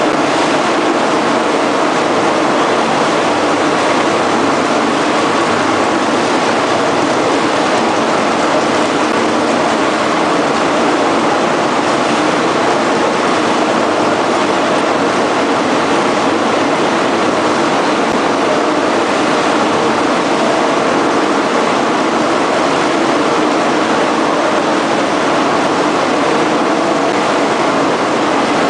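Steady, loud mechanical din of laundry soap production machinery running continuously, with a constant hum and no distinct strokes or changes.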